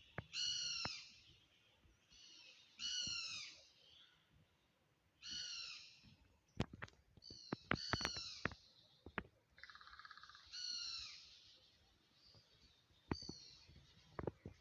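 A bird repeating a short call that drops slightly in pitch, about every two and a half seconds, six times in all. A few sharp clicks come around the middle.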